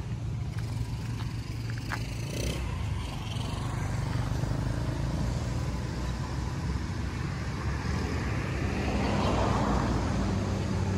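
An engine running steadily, a low hum that grows louder and fuller over the last few seconds, with a few faint clicks.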